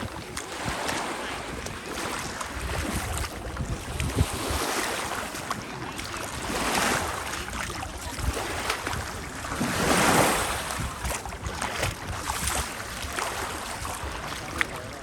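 Small sea waves breaking and washing up the shore, swelling and fading about every three to four seconds, the biggest about ten seconds in, with wind rumbling on the microphone.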